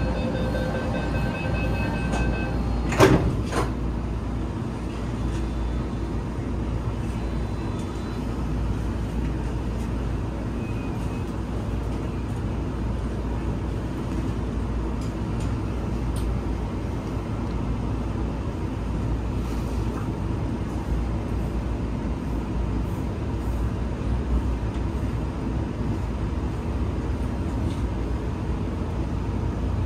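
Steady low rumble of a vehicle cabin. There is repeated beeping for the first two and a half seconds, then a single sharp thump about three seconds in.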